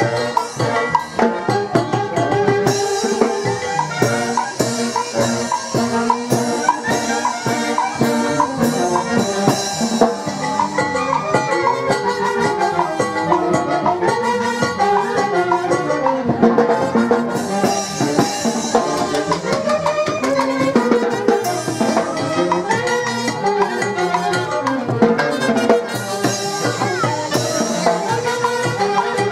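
Brass band of saxophones and trumpets with drums playing dance music.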